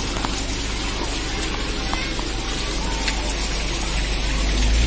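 Steady rushing hiss of running water from a garden pond's rock water feature.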